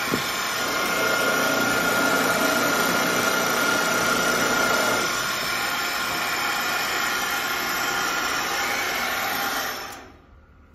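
Ritter R113 13-spindle line boring machine's 3/4 hp motor running steadily, its 5 mm bits drilling a row of shelf-pin holes into a cabinet panel for several seconds around the first half. The machine stops near the end and the sound drops away.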